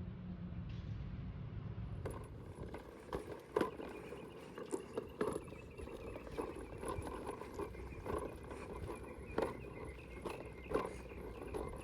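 A series of light, irregular knocks, about two a second, starting about two seconds in over a low hum.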